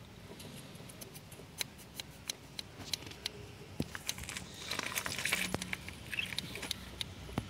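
Scattered small metallic clicks and clinks from fingers handling parts at the top of a Kinetic Honda scooter's carburettor, with a short rustling scrape about five seconds in.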